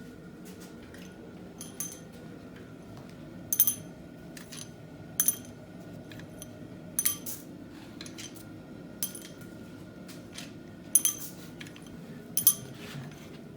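Steel pushrods from a 5.3 LS V8 being pulled out and laid down together: a scattered series of sharp, ringing metal clinks, about a dozen, over a faint steady background hum.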